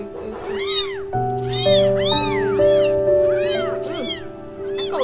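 Very young kittens mewing over and over, short high cries that rise and fall, several overlapping at once. Background music of held notes comes in about a second in.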